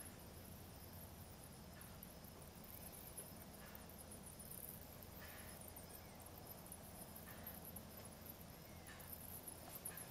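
Near silence: faint dusk outdoor ambience with a steady high-pitched hiss and a few faint short chirps from small animals every second or two.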